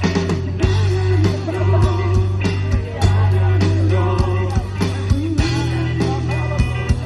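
Live band playing an instrumental passage: a lead guitar melody with pitch bends over sustained bass and a steady drum beat.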